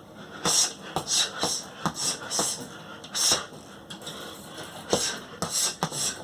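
Short, sharp hissing exhalations of a boxer punching: about a dozen in quick irregular bunches, each with a faint snap at its start.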